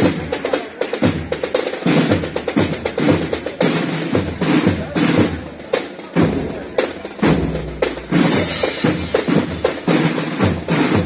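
Processional band's drums playing a march: snare-drum rolls over regular bass-drum beats.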